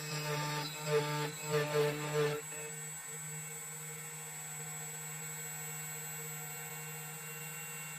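CNC key cutting machine's spindle running steadily, a constant whine, while it mills a flat key blank. A wavering pitched sound rides over it for the first two seconds.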